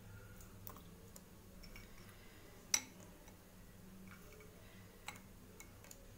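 Quiet room tone with a low steady hum and a few faint scattered clicks, one sharper click a little before the middle.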